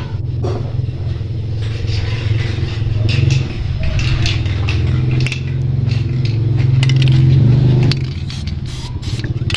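Aerosol spray can hissing in spurts as lubricant is sprayed onto a stiff belt-tensioner adjuster to free it, over a steady low hum. The hiss stops about eight seconds in.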